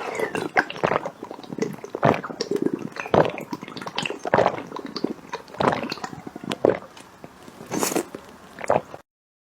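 A person drinking up close: wet gulping and swallowing sounds, one about every second, that stop abruptly near the end.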